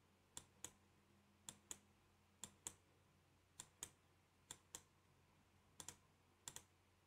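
Faint computer mouse clicks, in pairs about a fifth of a second apart (button press and release), roughly once a second, seven times.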